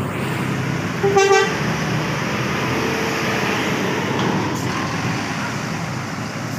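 A bus horn sounds one short, steady blast about a second in, over the steady noise of running bus engines and traffic.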